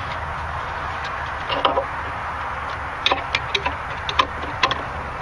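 Hand ratchet clicking in short, irregular runs as mounting bolts are snugged down on a boat's jack plate, over a steady hiss.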